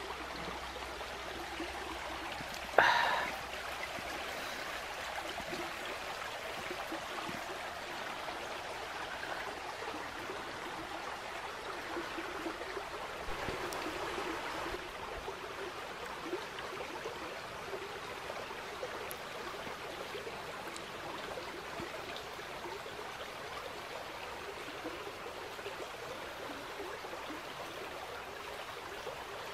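Woodland stream running steadily, a constant rush of water. About three seconds in, a single sharp knock rings out briefly above it.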